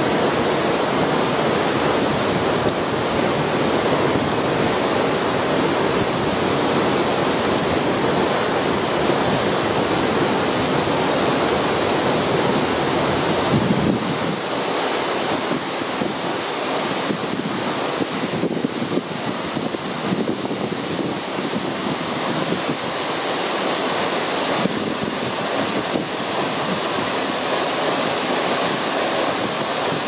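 Large waterfall pouring into its plunge pool: a loud, steady rush of falling water, with a little less low rumble after about halfway.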